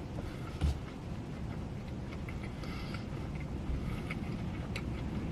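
A person chewing a crispy fried chicken sandwich, with small clicks and a short rustle, over a steady low rumble; one soft thump about two-thirds of a second in.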